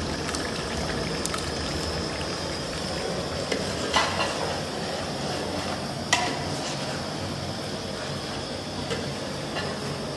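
Beef frying in oil in an aluminium pot, sizzling steadily while a long metal spoon stirs it, the spoon clinking sharply against the pot twice, about four and six seconds in. The meat is at the bhuna stage, browning in the oil until the oil separates.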